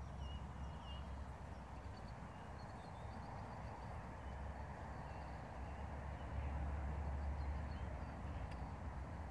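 Open-air background: a low rumble that swells about six seconds in, under a steady faint hiss, with short faint high bird chirps scattered through it.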